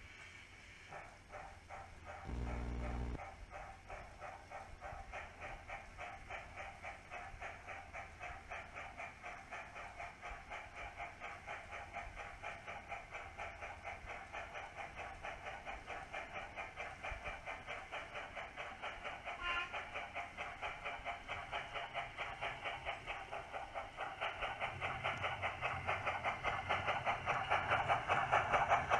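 Sound decoder of a Bachmann OO gauge WD Austerity 2-8-0 model locomotive playing steady, even steam exhaust chuffs that grow louder toward the end as the model comes closer. A short low tone sounds about two seconds in.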